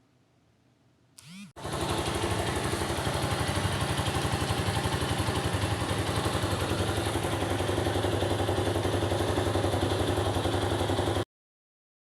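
Motorcycle engine started with a brief rising whine, catching and idling steadily with an even pulse, then cut off abruptly near the end.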